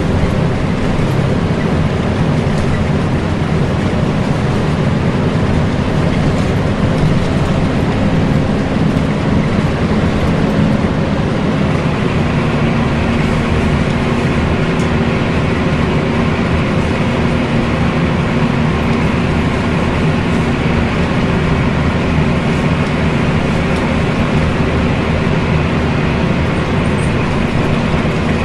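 Volvo B10BLE bus running under way, heard on board: diesel engine and road noise, with the engine cooling fan's vacuum-cleaner-like 'hoover' rush growing louder about twelve seconds in.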